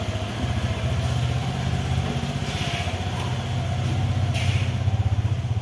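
Motorcycle engine running steadily at low revs, with an even, rapid putter.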